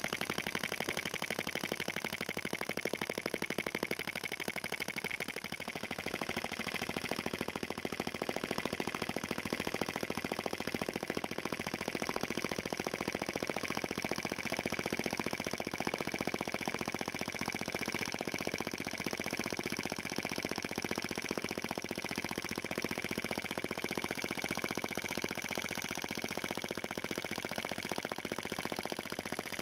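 Brass model vacuum (flame-licker) engine running fast and steady: a rapid, even stream of ticks from its valve and mechanism, with a steady high tone running through it. It is running smoothly on new bearings and a new valve and spring.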